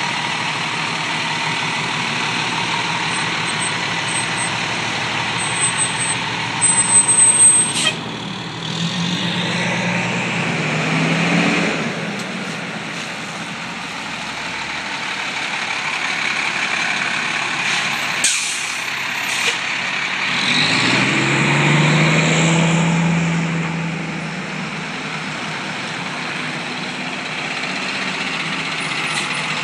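Diesel fire-truck engines idling, with two stretches where the engine note rises and swells as a truck pulls off. Air brakes hiss, and there is a short loud burst near the start.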